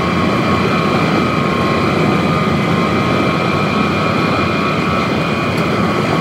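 Steady rush of wind and road noise on a hood-mounted camera as the vehicle drives at speed, with a constant whine over it.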